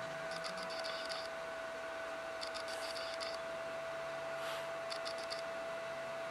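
Soft background music: one long held note under a slowly moving low line, with quiet scratchy shaker-like clusters about every two seconds.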